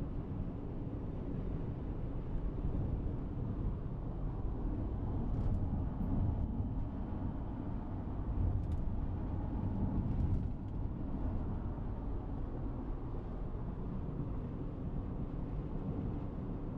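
Steady low rumble of a car in motion, road and wind noise, with a few faint ticks in the middle.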